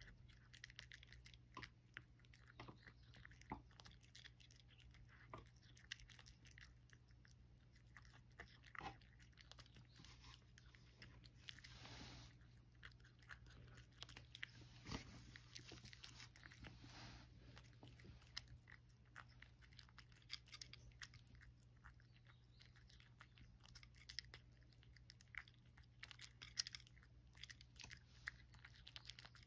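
A cat chewing and crunching dry kibble mixed with wet canned food: faint, irregular crunches and clicks, with a few louder crunches near the end.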